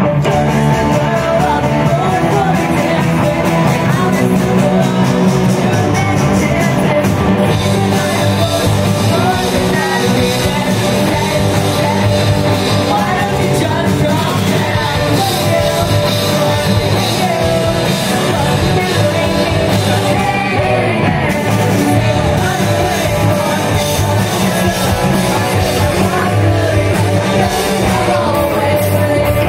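Live rock band playing: electric guitars and drums behind a lead singer, a steady loud full-band sound.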